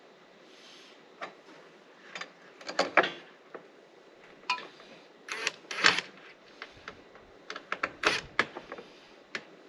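Metal mast-mount bracket and its hardware being handled and set in place: a string of irregular clicks, clinks and knocks.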